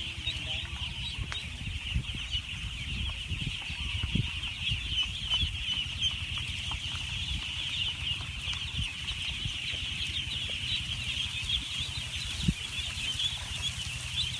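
A massed flock of about two thousand ducklings peeping all at once: a dense, unbroken chorus of short high chirps. Low rumbling and scattered thumps sit underneath, one sharper thump near the end.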